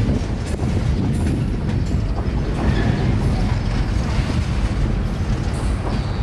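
Freight boxcars rolling past on steel rails, the wheels giving a steady rumble with light clicking over the rail joints.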